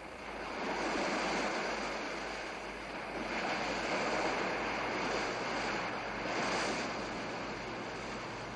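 Sea waves breaking and washing, swelling and easing every two or three seconds.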